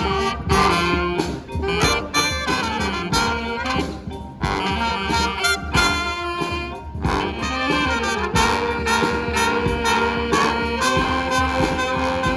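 Brass band playing live: a horn section of saxophones, trumpets and trombones in a jazzy, up-tempo tune over regular drum hits.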